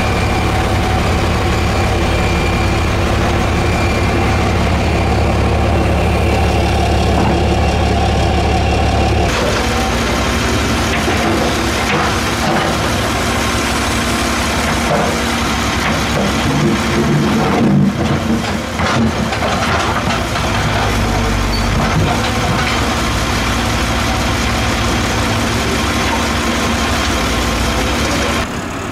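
Diesel engines of an excavator and a dump truck running steadily, a drone that changes character about nine seconds in. A few louder knocks come a little past the middle, as the excavator loads dirt and rock into the truck.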